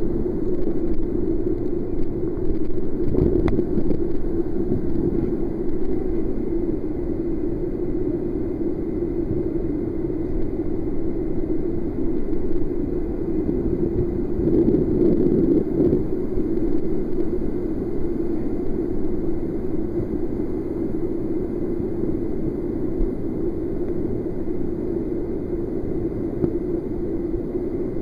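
Whitewater cascade rushing steadily through a narrow rock gorge, with one brief knock about three seconds in.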